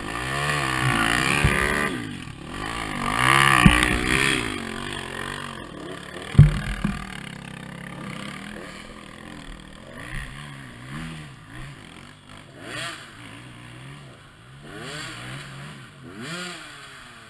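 Enduro dirt bike engine revving up and down as the bike is ridden over rocky ground, with the revs loudest about three to four seconds in. A sharp knock about six seconds in.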